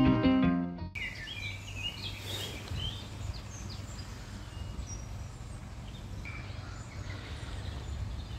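Guitar music cuts off about a second in, giving way to outdoor ambience: scattered songbird chirps over a steady low background hum.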